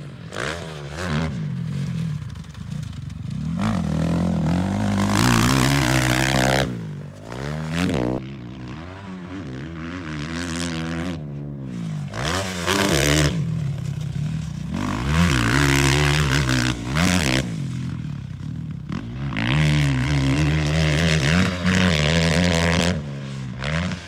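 Motocross dirt bike engines revving hard and backing off through jumps, the pitch rising and falling. The sound swells loud several times as bikes pass close.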